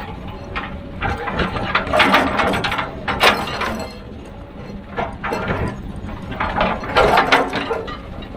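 Heavy machinery working rock, with irregular bouts of clanking, scraping and clattering over a low steady machine rumble.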